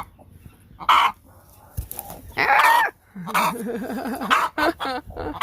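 Broody hens calling in protest as their eggs are handled: a short call about a second in, a loud squawk about two and a half seconds in, then a low wavering call and a few short calls near the end.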